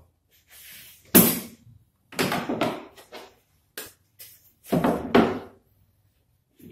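White melamine boards and a bar clamp being picked up, knocked and set down on a wooden workbench: a string of separate knocks, thuds and short scrapes, the sharpest about a second in.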